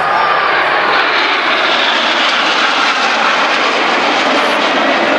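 Jet engines of a formation of BAE Hawk T1 jet trainers flying by: a loud, steady rushing noise with no break.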